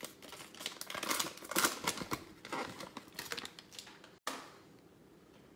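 Foil wrapper of a football trading-card pack crinkling and tearing as it is opened, a dense run of crackles for about four seconds, then only faint handling of the cards.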